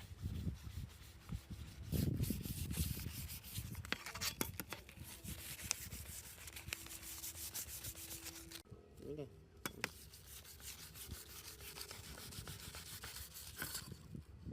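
Irregular hand rubbing and scraping on a hard surface, with scattered light clicks and an abrupt cut about nine seconds in.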